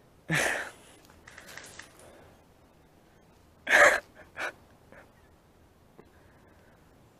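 A few sharp, noisy breaths close to the microphone: a strong one near the start and another just before the middle, each followed by smaller puffs, with a light click near the end.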